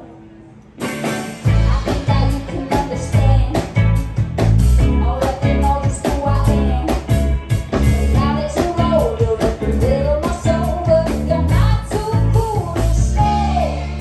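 A live rock band playing, with electric guitars, bass guitar, drum kit and singing. The band drops to a brief quiet moment, then comes back in loud about a second in.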